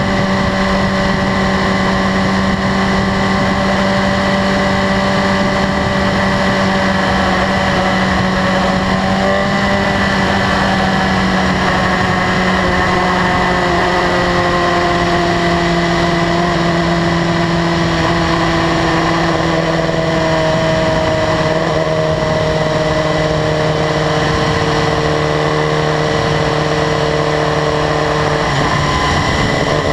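2015 BMW S1000RR's inline-four engine running at a steady cruise. From about ten seconds in its pitch sinks slowly as the bike eases off, then rises again right at the end. A steady rush of wind runs underneath.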